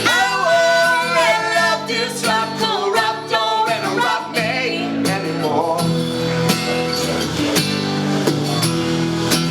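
Acoustic guitar playing, with a sung vocal line over it for the first few seconds, then the guitar carrying on alone with held chords.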